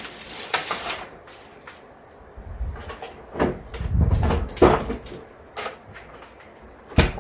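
Handling noises: rustling and dull knocks of objects being moved, with a single sharp click about seven seconds in.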